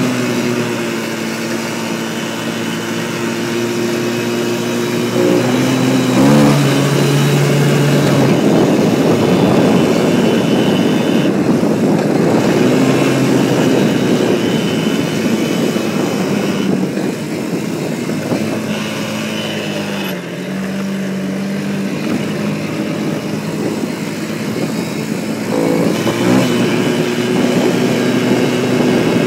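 Quad (ATV) engine running as it is ridden over a dirt trail, its note shifting a few times as the throttle changes, with a louder, rougher stretch in the middle.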